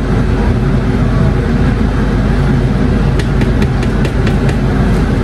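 Kitchen range-hood exhaust fan running loud and steady over the stove. A little past halfway comes a quick run of light clicks as the slotted spoon knocks against the pot.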